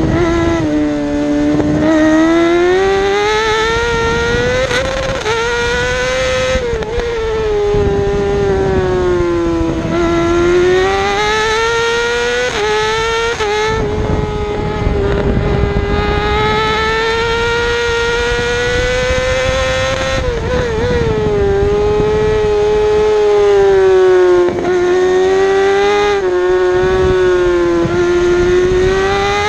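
Yamaha YZF-R6 inline-four racing engine held high in the revs under race conditions. Its high-pitched note drops several times as the rider slows and rises again as he accelerates, with brief stumbles at gear changes, over a rush of wind.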